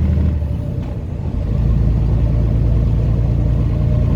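Truck engine running, heard from inside the cab as a steady low hum. About a second in the engine note dips and quietens, then settles at a lower pitch.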